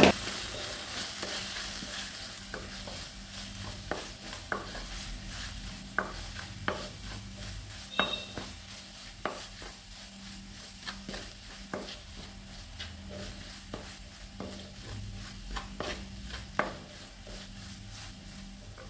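Wooden spatula stirring and scraping a thick masala of spice powders, tomato and onion around a clay kadai, with irregular knocks against the pot. A faint sizzle of frying runs underneath.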